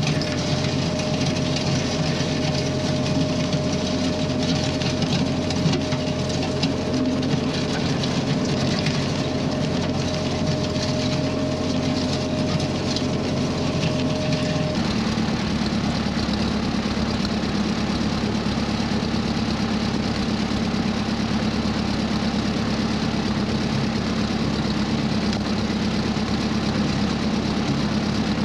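Ford 8N tractor's four-cylinder flathead engine running steadily on its replacement carburetor while pulling a box blade, with a gritty crunch of gravel under the blade. About halfway through the sound changes abruptly to the engine heard close up, still running steadily.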